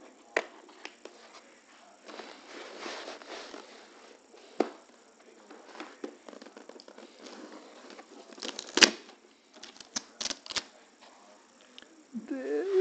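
Plastic latches on a foam drone carrying case clicking as they are undone, with the foam scraping and rubbing as the case is handled and the lid opened. One sharp snap about two-thirds through is the loudest, followed by three quick clicks.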